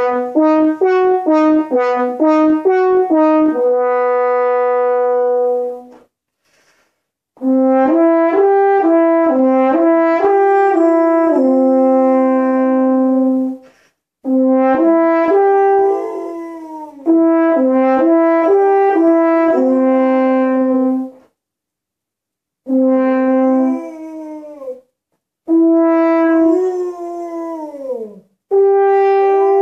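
French horn playing arpeggio warm-ups: quick runs of stepped notes up and down, each phrase ending on a long held note, with short pauses between phrases. From about halfway through, an English Springer Spaniel howls along, its voice sliding up and falling away over the horn's held notes.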